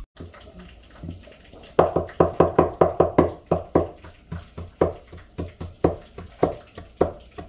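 Kitchen knife chopping fresh parsley on a wooden cutting board: a steady run of quick knocks of the blade on the board, starting about two seconds in, at about three to four strokes a second.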